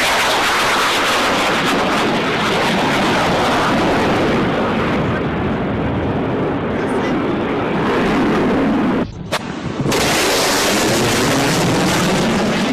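Jet fighter fly-bys: loud jet engine roar with sliding pitch as the aircraft pass. The roar breaks off about nine seconds in, with a single sharp click, and a second loud pass starts about a second later.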